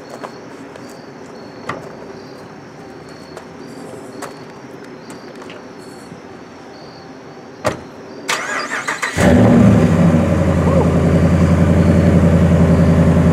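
A 2013 Ram 1500 pickup's engine is started: a single thump, then about a second of the starter cranking, and the engine catches and settles into a loud, steady idle.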